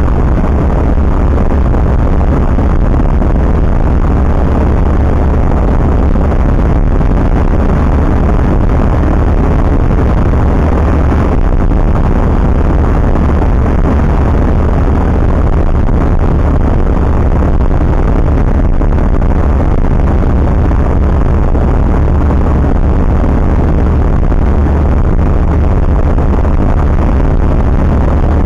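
Single-engine light aircraft's piston engine and propeller droning steadily in flight, heard loud from inside the cockpit, a deep constant hum under rushing noise.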